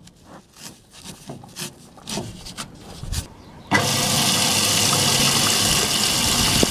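A few light knocks and clicks at an automatic livestock water drinker, then about two-thirds of the way in water suddenly starts rushing through the drinker's float valve with a steady loud hiss as it begins to fill.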